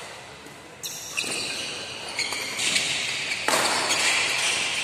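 Badminton doubles rally in a large, echoing hall: sharp racket hits on the shuttlecock about a second in, then the court gets louder and noisier through the second half.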